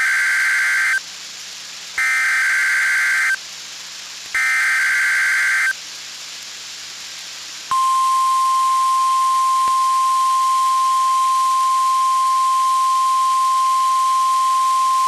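NOAA Weather Radio Required Weekly Test: three bursts of SAME digital header tones, each about a second long and two seconds apart. About halfway through, the steady single-pitched 1050 Hz warning alarm tone starts and holds.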